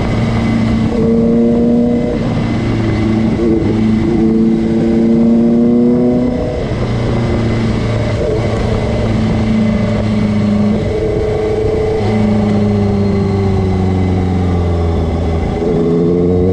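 Superbike engine running on the road, its note drifting up and down with speed and breaking briefly every four or five seconds.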